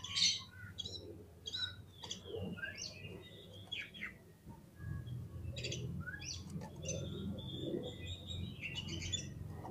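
Oriental magpie-robin (kacer) singing: a run of short, sharp whistles and chirps broken by brief pauses. A low hum sits underneath and grows stronger from about halfway through.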